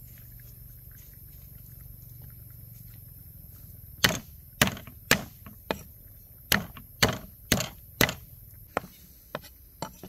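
Knife chopping on a wooden cutting board: about eleven sharp strikes, roughly two a second, starting about four seconds in and getting lighter toward the end.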